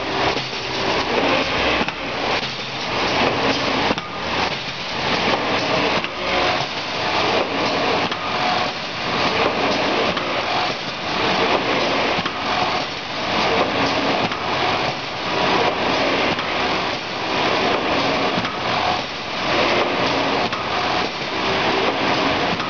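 Industrial cutting machine running, a steady mechanical clatter that pulses in a repeating cycle of roughly one to two seconds.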